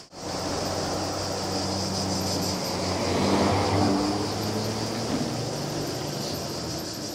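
Wind and rolling noise from a fast e-bike descent on a mountain road, with a low droning hum that swells around the middle and then fades, and a steady high buzz behind it. The sound drops out briefly at the very start.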